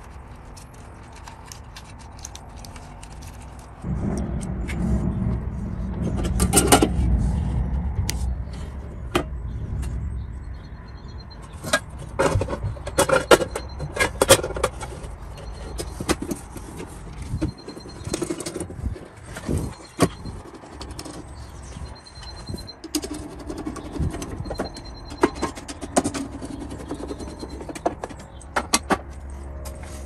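Irregular clicks, taps and knocks of hands handling wiring and plastic parts on a wall-mounted alarm control panel, with a low rumble from about four seconds in that fades out after the middle.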